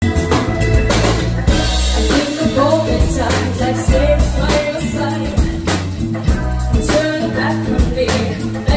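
Live rock band playing: a woman sings lead over electric guitar, bass guitar and a drum kit with a steady beat.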